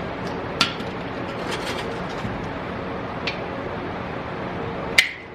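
A few sharp clicks and clinks of old pinball machine parts being handled and pulled loose, over a steady hum. The loudest click comes near the end, and the hum drops off just after it.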